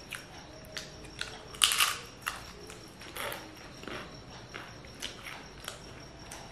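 Crisp roasted masala papad being bitten and chewed: a run of dry crunches, the loudest about one and a half seconds in.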